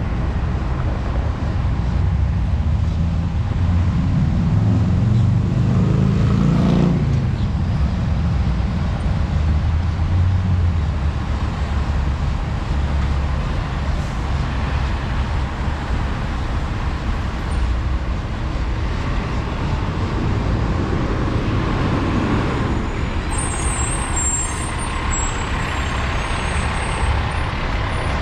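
Street traffic with a heavy vehicle's engine running close by. The engine note rises to a peak about six to seven seconds in, and swells again around twenty-two seconds in. A brief high squeal comes near the end.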